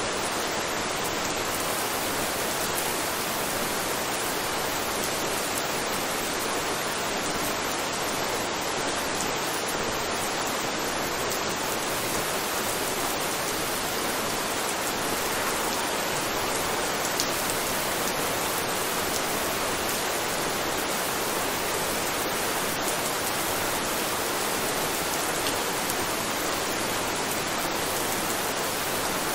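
Steady rain: an even, unchanging hiss of rainfall with a few faint drop ticks.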